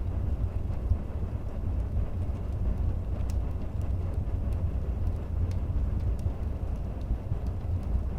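Wood fire burning in a fireplace: a steady low rumble of the flames with scattered sharp crackles and pops from the burning wood, a few each second.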